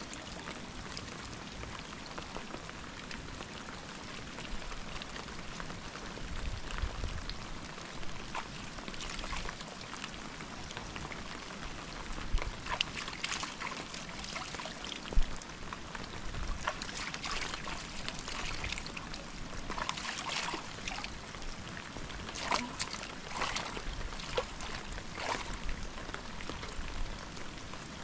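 Water trickling and splashing: a steady hiss with many irregular sharp drips and splashes, busier and louder in the second half.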